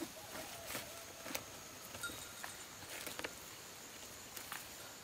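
Husked corn ears rustling and knocking as they are packed by hand into a woven plastic sack, in scattered short crackles.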